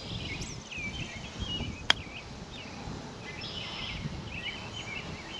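An 8-iron strikes a golf ball once, a single sharp click about two seconds in, on a run-up shot. Birds chirp throughout.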